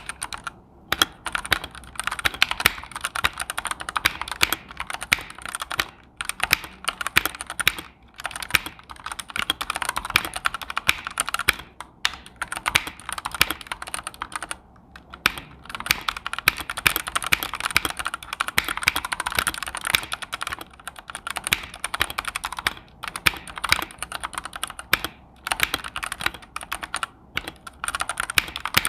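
Fast typing on a Dark Alien K68 65% mechanical keyboard with red switches and double-shot ABS keycaps: a dense run of key clacks, broken by short pauses every few seconds.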